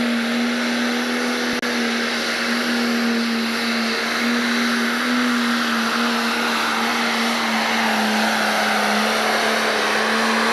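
Diesel engine of an International Harvester pro stock pulling tractor running flat out under full load as it drags the sled, holding a steady high pitch.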